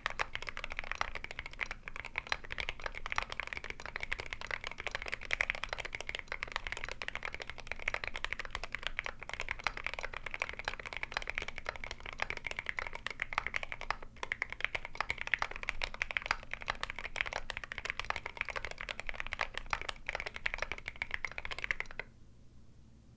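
Continuous typing on a tape-modded GMMK Pro mechanical keyboard with a brass plate, lubed Akko Jelly Black linear switches and MSA-profile keycaps: a dense, steady patter of keystrokes that stops about 22 seconds in.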